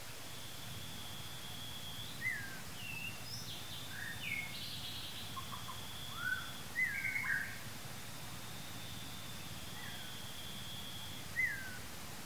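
Birds chirping: scattered short calls that slide downward in pitch, a quick cluster around the middle and a single one near the end, over a steady high thin tone and a low background hum.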